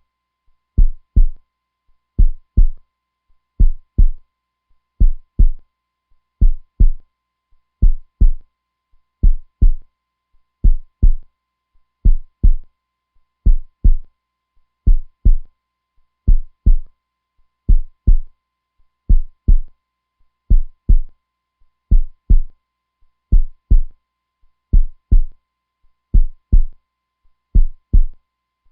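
Heartbeat, strong and constant: steady deep double thumps (lub-dub), a pair about every second and a half.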